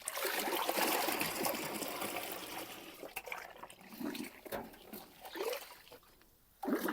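Water rushing out of a pipe, strongest at first and fading over a few seconds to scattered trickles and splashes.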